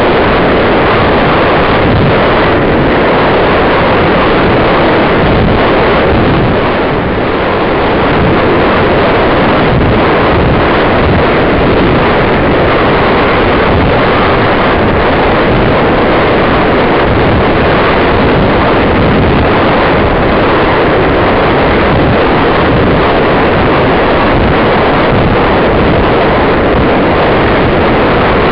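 Steady, loud wind rushing over the balloon capsule's onboard camera microphone as the capsule descends after its flight was cut short. It eases slightly about seven seconds in.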